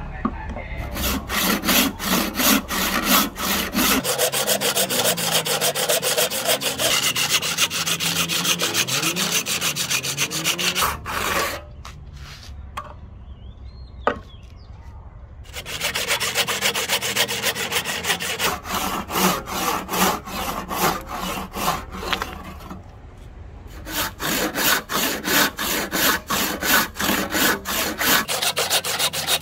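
A hand tool cutting ebony with quick, even back-and-forth strokes, in three runs. The strokes stop for about five seconds starting around 11 seconds in, with a single click in the gap, and pause again briefly around 23 seconds in.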